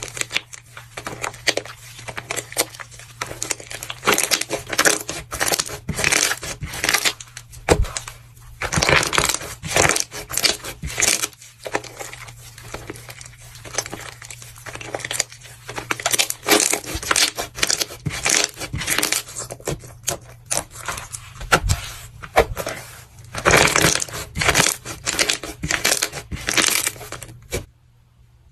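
Crunching and crackling in repeated bursts of a second or two, as a brittle, crumbly material is squeezed and crushed, cutting off shortly before the end.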